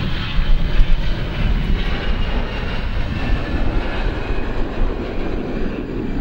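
Airbus A320 jet engines at takeoff thrust as the airliner rolls down the runway and lifts off: a loud, steady rumble with a hiss on top.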